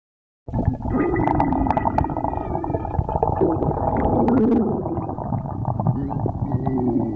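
A person's stomach growling: continuous gurgling rumbles with wavering pitched sounds that rise and fall, starting abruptly after a brief silent gap about half a second in.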